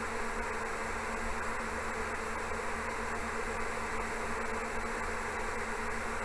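Steady droning hum with a faint buzz, unchanging throughout.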